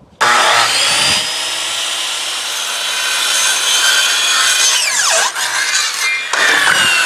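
Corded circular saw starting suddenly and cutting across a thin plywood sheet, a loud steady whine. About five seconds in, its pitch dips sharply and climbs back before the cut runs on.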